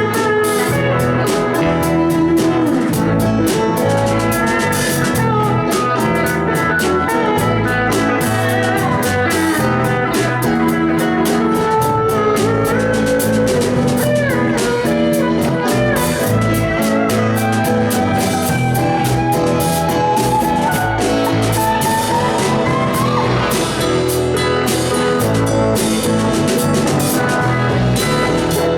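Live band playing an instrumental passage: a guitar lead line with bent, sliding notes over bass and a steady drum-kit beat.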